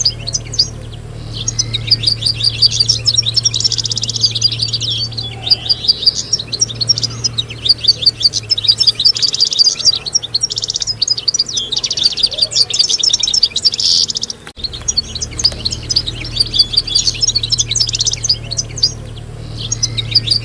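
Several European goldfinches singing together in rapid, liquid twittering trills, over a steady low hum. The sound drops out briefly about fourteen seconds in.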